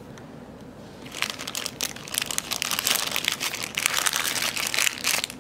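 Clear plastic bag full of small sanding caps crinkling as it is handled, starting about a second in and going on in dense crackles.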